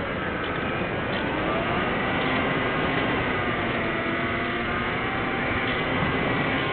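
Twin electric motors and propellers of a Firebird Stratos foam RC plane whining in flight. The pitch dips and rises a few times over heavy wind noise.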